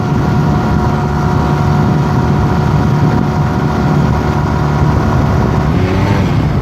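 Honda Rebel 250's air-cooled parallel-twin engine running steadily at road speed, with wind rushing over the microphone. The engine pitch rises a little near the end.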